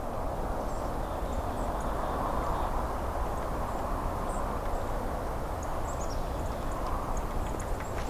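Creek water running steadily, with a few faint, short, high-pitched bird calls scattered over it.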